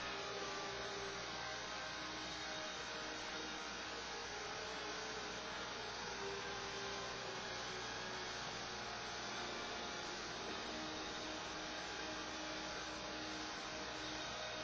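Steady electrical hum over an even hiss, unchanging throughout.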